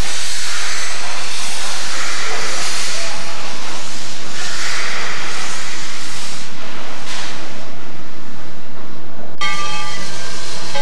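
Steam locomotive No. 14 venting steam, a loud hiss that swells and fades in several surges. Near the end a steady sound with several clear pitches comes in over it.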